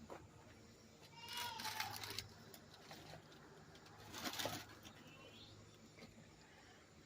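Goat bleats: one about a second and a half in, and a second, rougher one about four and a half seconds in.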